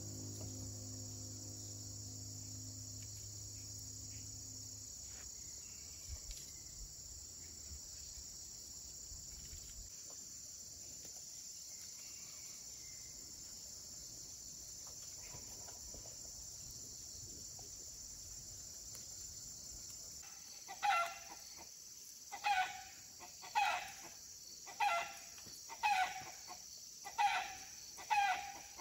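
Insects chirring steadily and high-pitched. In the last third, a chicken calls seven times in a regular series, about one call every second.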